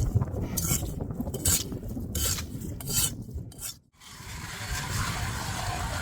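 Rhythmic crunching, rasping strokes on snow-covered lake ice, roughly one every 0.7 seconds. After a short break about four seconds in, a steady mechanical running noise takes over.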